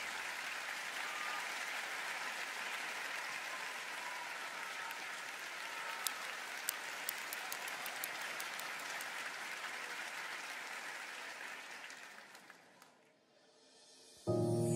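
Studio audience applauding steadily, fading away about twelve seconds in to a brief near quiet. Just before the end, music starts suddenly and loudly.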